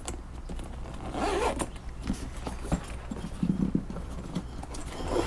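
Zipper of a black fabric-covered hard carrying case being pulled open in several short pulls.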